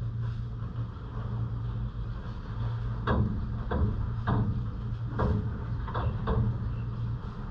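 Rainwater dripping in separate, irregular drops, about six of them bunched from a few seconds in, over a steady low city rumble.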